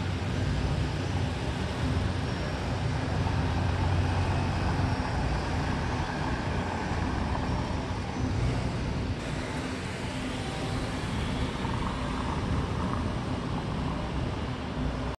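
Street traffic: cars going by with a steady low engine drone that swells a little about four seconds in and again near the end.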